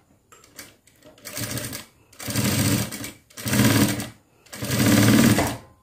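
Industrial single-needle lockstitch sewing machine stitching an understitch along a neckline facing. It runs in four short bursts of about a second each, stopping and starting between them as the fabric is turned round the curve.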